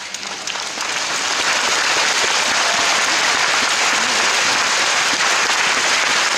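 A large hall audience applauding, the clapping swelling over the first second or so and then holding steady.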